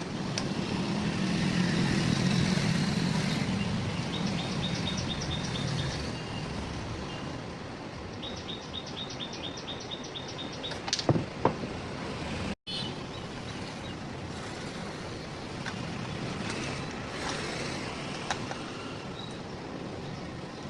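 Road traffic noise: a vehicle passes in the first few seconds. Two quick series of high, evenly spaced chirps come in the middle, then a couple of sharp knocks.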